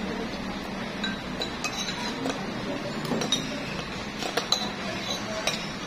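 Metal forks and spoons clinking and scraping against ceramic dinner plates during a meal: a scatter of light, irregular clinks, the loudest a little past the middle.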